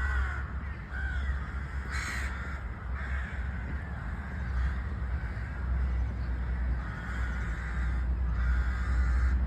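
Crows cawing repeatedly, a few calls near the start and more near the end, over a steady low rumble.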